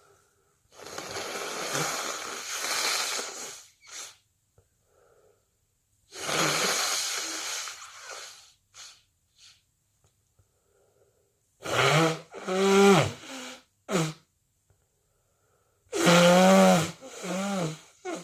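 A person with a head cold blowing their nose twice, each a long noisy blow of about three seconds. Then come several loud voiced sneezes, in two clusters near the end.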